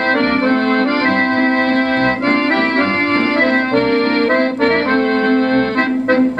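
Accordion-led instrumental break of an Italian popular song, played from a record on an RCA Victor Orthophonic High Fidelity SHF-7 record player. The sound is narrow and dull-topped, as from an old recording.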